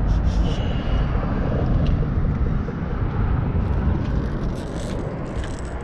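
Steady low rumble of wind buffeting the microphone, with scattered light clicks and rustles of handling.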